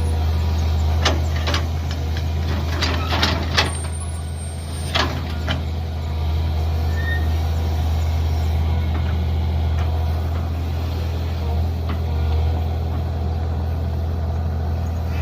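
Mini excavator's engine running steadily, with a cluster of sharp knocks and clanks in the first five or six seconds as it digs.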